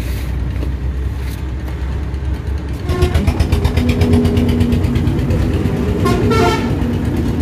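Heavy vehicle running, with a rapid even beat coming in about three seconds in, and a horn sounding briefly near the end.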